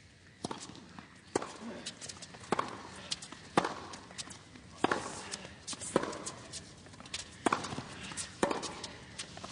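Tennis rally on a hard court: sharp pops of the ball coming off racket strings and bouncing on the court, about one a second, over a hushed crowd.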